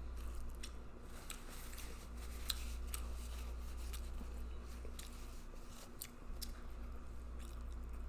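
Close-miked eating sounds: irregular wet clicks of chewing and lip smacking, over a steady low hum.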